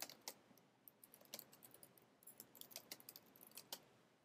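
Faint computer keyboard typing: quick runs of keystrokes typing out a short phrase, with a brief pause between runs, stopping near the end.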